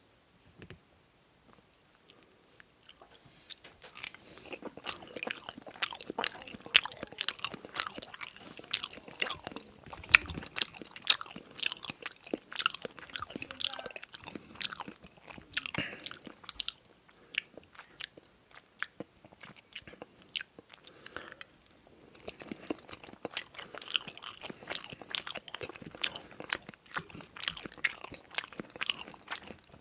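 Close-miked eating: a person chewing with wet smacking and many sharp, crisp crunching clicks. It starts a couple of seconds in, eases off for a few seconds past the middle, then picks up again.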